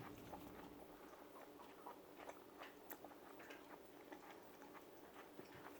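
Faint chewing with soft, scattered mouth clicks over quiet room tone and a low steady hum.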